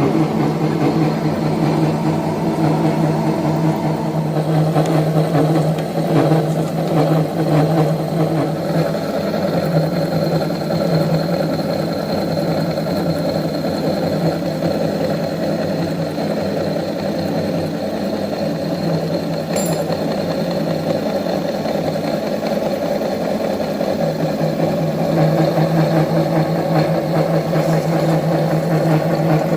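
Mirage MRY portable three-axis milling machine running steadily, a constant machine hum.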